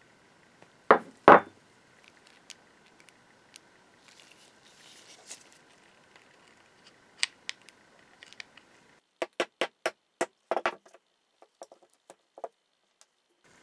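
Metal parts of an old hand drill being handled: two heavy knocks about a second in, scattered light clicks, then a quick run of sharp metallic clicks about two-thirds of the way in.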